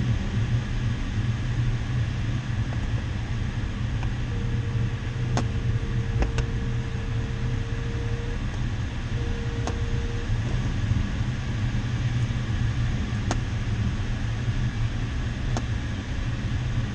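Steady rush of air past a glider's cockpit in flight. A steady mid-pitched electronic beep from the variometer sounds for about four seconds a few seconds in, then again briefly a second later, with a few faint clicks.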